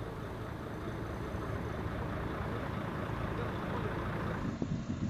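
Steady outdoor background noise, a low rumble with hiss; a little before the end it changes to a rougher, slightly louder rumble.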